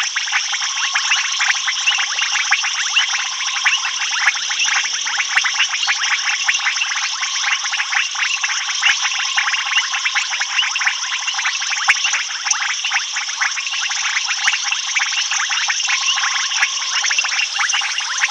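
Dense night chorus of frogs and insects: a rapid, unbroken mass of clicking calls over a steady high-pitched trill, with a lower trilling tone that comes and goes.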